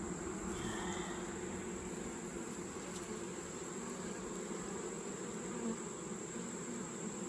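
Honeybees buzzing around an open hive during a frame inspection: a steady, droning hum of many bees.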